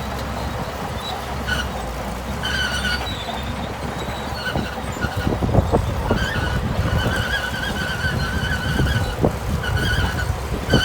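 Shantui bulldozer's diesel engine running under load, with an intermittent high-pitched squeal and scattered metallic knocks from the machine as it works.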